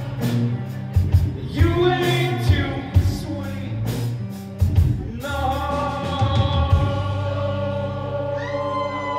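Rock band playing live: drums and electric guitar with singing. About five seconds in the drums stop and a held chord rings on, the song ending.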